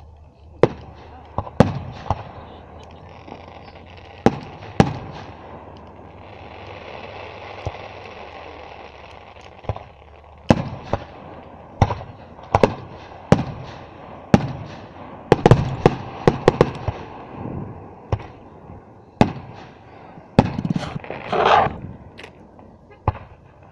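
Aerial firework shells bursting: about twenty sharp bangs at irregular intervals, with a lull in the bangs from about five to ten seconds in.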